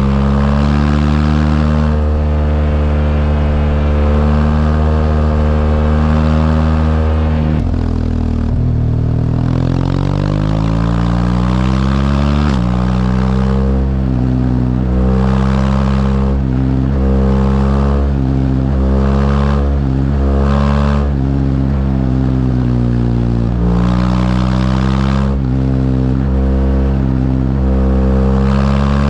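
BMW R1200GS LC motorcycle's liquid-cooled flat-twin boxer engine under way. It holds a steady pitch, falls off about a quarter of the way in, then pulls up through the gears in several short rising runs, each dropping back at the shift, before settling to a steady cruise near the end.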